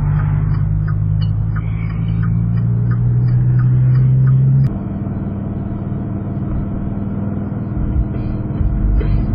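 Dodge Viper's V10 engine heard from inside the cabin, pulling the car up to speed with a steady low drone that changes suddenly to a quieter note about halfway through. A light ticking, about two ticks a second, runs under the drone in the first half.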